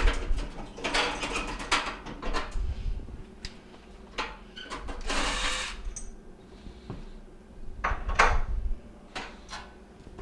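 Metal burner parts clinking and knocking as they are lifted off and set down on a gas range cooktop. About five seconds in, a cordless drill runs briefly to back out a burner's screws.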